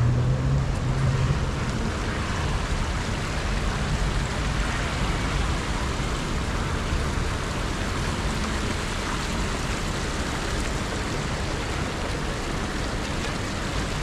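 Steady street traffic noise. A vehicle's low engine hum fades out in the first couple of seconds.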